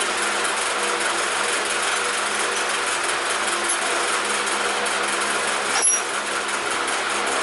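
Steady whirring hum of a running machine, with a single sharp metallic clink about six seconds in.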